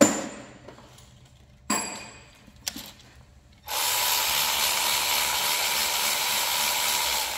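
Metal tools clank twice with a short ringing, then a small click. About three and a half seconds in, a power driver starts and runs steadily to the end, turning a bolt on the engine.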